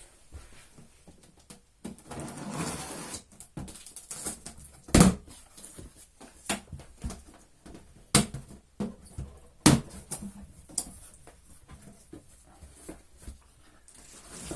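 Handling noise from unpacking a boxed vacuum cleaner: packaging rustling for a second or so, then a series of sharp knocks and clicks as parts are taken out and set down, the loudest about five seconds and nearly ten seconds in.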